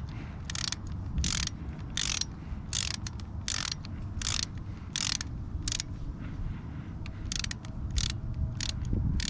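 Hand ratchet wrench clicking in short bursts on each back-stroke, roughly one stroke every 0.7 s, as it snugs down a motorcycle's oil filter cover bolts. A steady low rumble runs underneath.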